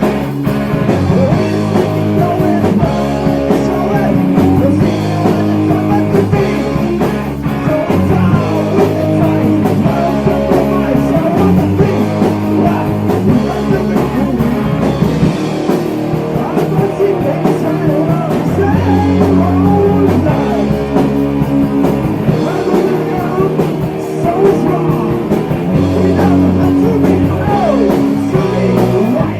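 Heavy metal band playing: electric guitars, bass and drums, with singing over the top.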